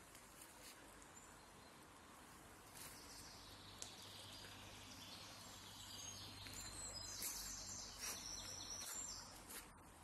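Quiet woodland ambience with birds chirping: a few short, high chirps come mostly in the second half, over a faint steady background hiss and a few soft clicks.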